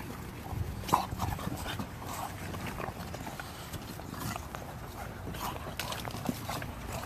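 Two English bulldogs wrestling on a raised fabric dog cot: paws and bodies scuffle and knock against the cot, the sharpest knock about a second in. Short dog sounds come now and then.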